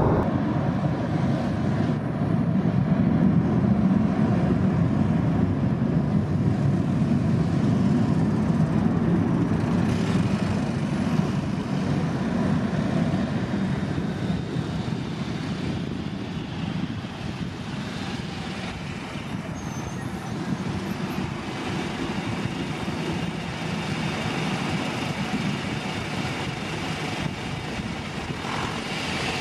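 Airbus A320 jet engines running as the airliner slows and taxis after landing: a loud low rumble for the first half that eases off about midway and settles into a quieter steady drone with a faint high whine.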